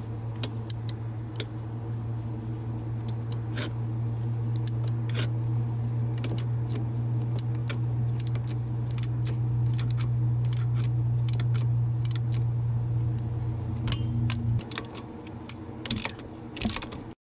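Irregular metallic clicks and clinks of a socket wrench working a 13 mm bolt on a mini excavator's fan-belt tensioner. Under them runs a steady low hum that cuts off about three seconds before the end.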